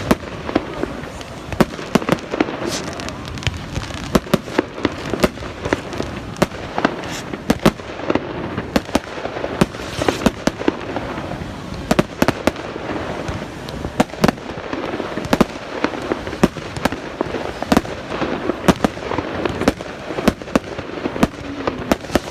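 Fireworks display: a continuous run of sharp bangs and crackles, several a second at irregular intervals.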